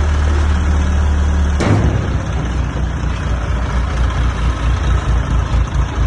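Small goods truck's engine idling with a steady low rumble; a single sharp sound cuts in about a second and a half in, after which the low rumble turns uneven and pulsing.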